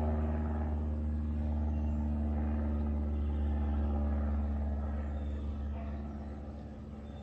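Light single-engine propeller airplane flying past, its piston engine and propeller giving a steady low drone that fades over the last couple of seconds as it moves away.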